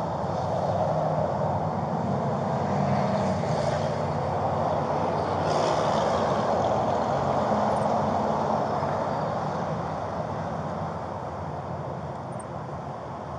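Steady rush of road traffic, with a low engine hum underneath. It swells in the middle and fades gradually over the last few seconds.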